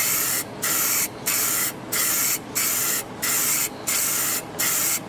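Aerosol spray paint can hissing in short, even bursts, about three every two seconds, each cut off by a brief gap as the nozzle is let go, laying down a light coat on bare metal.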